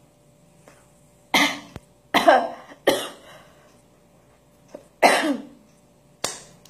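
A person's short, cough-like vocal bursts, five in all: sudden breathy sounds, some with a brief sliding pitch, coming irregularly about a second apart.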